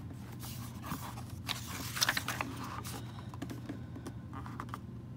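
Handling of a Little Golden Book picture book as its cardboard cover and pages are turned: paper rustling with light clicks and taps, busiest about two seconds in.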